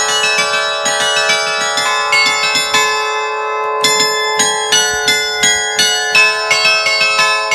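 A concert of thirteen fixed bronze bells in A, cast by Allanconi, struck in quick succession from a wooden baton keyboard whose wires pull the clappers, playing a festive allegrezza. The rapid strikes stop for about a second around three seconds in while the bells ring on, then start again over a steady ringing hum.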